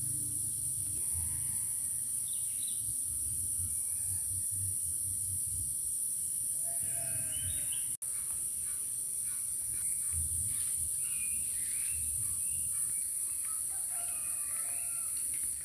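Chickens calling now and then, with a rooster crowing, over a steady high-pitched drone of insects. The sound cuts out for an instant about halfway through.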